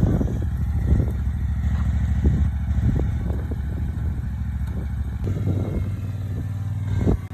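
Riding lawn mower engine running steadily, with a few light knocks and clatters over it and a sharp knock near the end.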